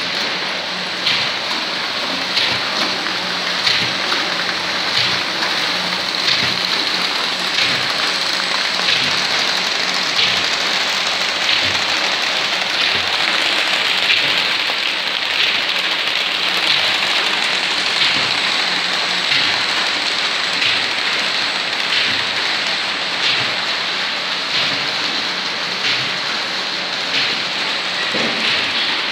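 Paper-sack tube-making line running: a loud, steady rushing clatter of rollers, chains and kraft paper web, with a regular beat about every 1.3 seconds.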